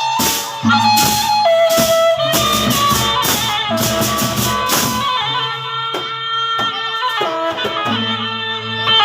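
Sasak gendang beleq ensemble playing: a wind melody of held notes that step up and down over steady strokes of large drums, with cymbals clashing densely through the first half and thinning out after.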